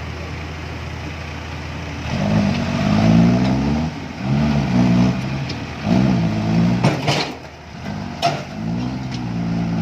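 Heavy diesel engine labouring under load, revving up and down in four surges after a steady run at first. Two sharp knocks, about seven and eight seconds in.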